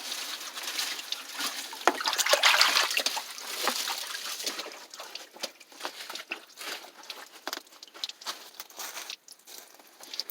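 Small stream trickling and dripping over rocks: a steady splashing trickle for the first few seconds, then quieter, with many scattered drip-like ticks.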